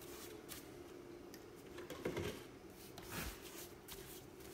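Faint scrubbing and rubbing on wet, weathered wood: a gloved hand working grain enhancer into a timber bench's backrest, with a couple of louder scuffs about two and three seconds in.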